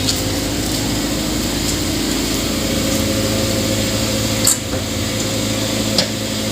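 Car running, heard from inside the cabin: a steady hum and rumble, with two light clicks near the end.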